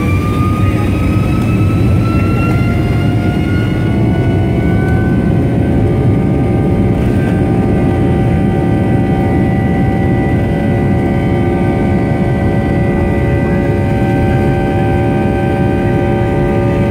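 Rolls-Royce RB211 turbofan of a Boeing 757-200 at takeoff power during the takeoff roll, heard from the cabin: a loud, deep rumble with several whining tones that rise over the first few seconds as the engine spools up, then hold steady.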